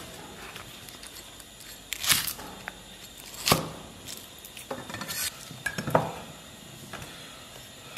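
Chinese cleaver chopping a shallot on a thick wooden chopping board: a handful of separate knocks spaced a second or more apart.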